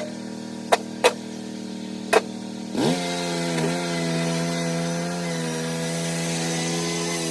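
Skid steer engine running at a low steady speed, with a few sharp knocks, then throttled up about three seconds in; the pitch climbs quickly and it holds steady at higher revs.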